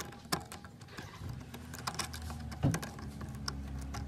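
Worm-drive hose clamps on a silicone intake hose being tightened with a hand nut driver: irregular light clicks and ticks from the clamp screw and tool, with a few sharper knocks, over a faint low hum.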